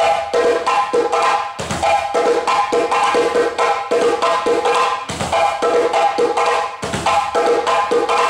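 Djembe played fast with a rapid run of sharp slaps and tones, broken by a few deep bass strokes.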